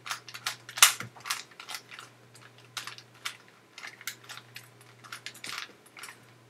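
Rubik's cube faces being twisted by hand: a quick, irregular run of plastic clicks.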